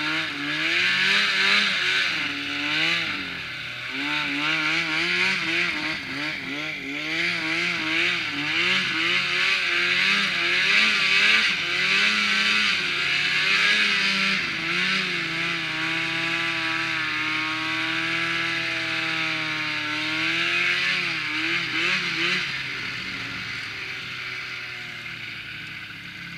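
Snowmobile engine running under the rider, its pitch rising and falling with the throttle, with a steady hiss over it. It holds an even pitch for a few seconds past the middle and eases off and grows quieter near the end.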